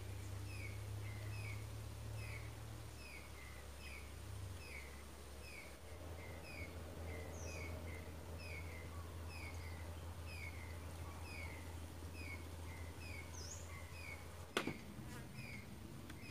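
A bird calling with short falling chirps, about two a second, over a steady low hum. A single sharp knock near the end.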